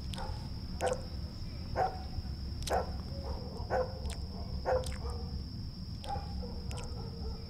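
A dog barking repeatedly in the background, roughly once a second, over a thin steady high whine and a low hum.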